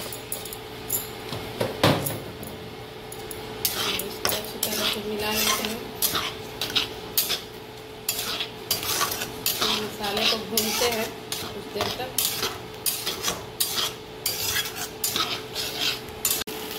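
Wooden spatula scraping and knocking around a black kadai, stirring fried onions with ground masala and turmeric; the paste sizzles lightly in the oil. There is a single knock about two seconds in, then busy repeated stirring strokes from about four seconds on, over a faint steady hum.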